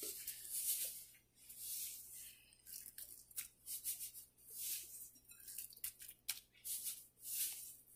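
Salt being sprinkled by hand over marinated fish pieces in a glass bowl: about a dozen soft, short, hissy rattles of falling grains at uneven intervals, over a faint steady low hum.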